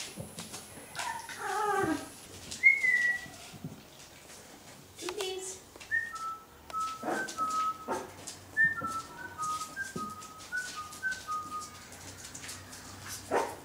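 One-month-old boxer puppies whimpering: a wavering cry about a second in, then a run of short, high-pitched whines from about six seconds in, over scattered soft knocks and scuffling.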